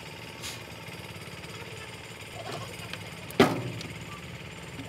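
Excavator's diesel engine idling steadily, with one loud sharp knock about three and a half seconds in.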